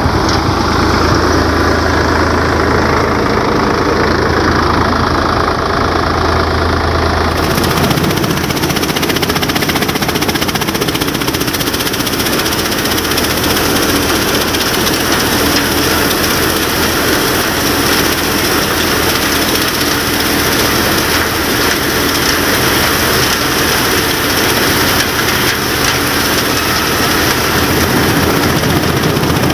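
A Sonalika 745 III tractor's diesel engine driving a thresher, both running steadily. About seven seconds in, the thresher's spinning drum takes over as a loud, even rushing noise, and the engine's low drone drops beneath it.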